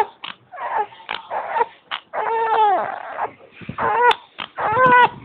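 Dog whimpering: a string of short, high, pitched whines, some bending and falling at the end, with breathy snuffles between them.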